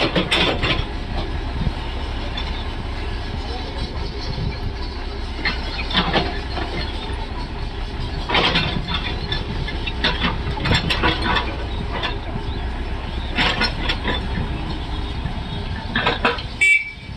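A backhoe loader's diesel engine running steadily, with loud metallic clanks every few seconds from the bucket and arm working. A brief high tone sounds near the end.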